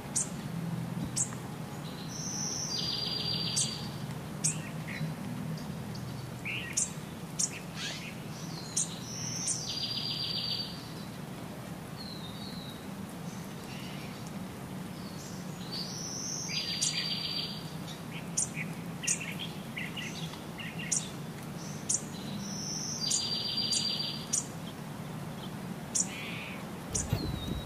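Songbirds singing and chirping: one song phrase, a high note followed by a fast trill, repeats about every seven seconds, with short high chirps in between, over a low steady hum.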